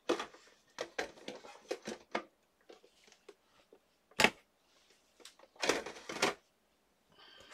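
Handling noises on a craft table: light clicks and taps, a sharp knock about four seconds in, and a scraping rustle around six seconds, as a small metal tin is brought out and set down on the cutting mat.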